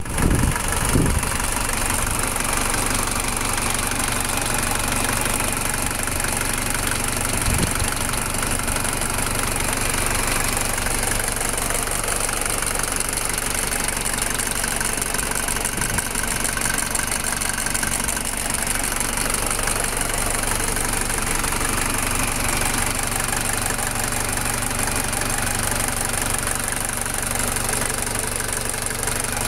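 1985 Mercedes-Benz 190D 2.2's four-cylinder diesel engine (OM601) idling steadily with the bonnet open, which the owner considers running nicely at 305,000 miles. A couple of brief thumps come in the first second.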